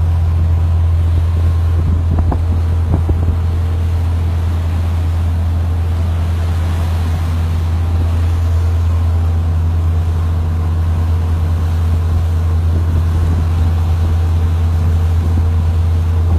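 Boat engine running with a steady low drone, heard from the deck, with wind and water noise over it.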